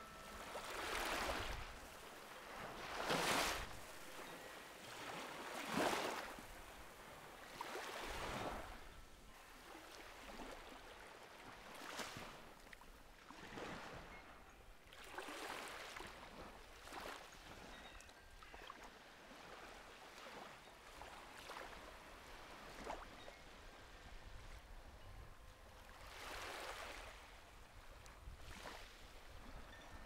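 Gentle sea waves washing onto a sandy beach, one swell and wash-back every two to three seconds, the strongest in the first few seconds.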